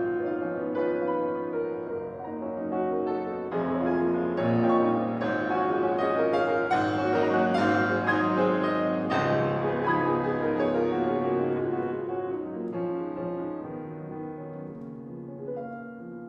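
Piano playing a classical piece, swelling louder about three and a half seconds in and growing softer over the last few seconds.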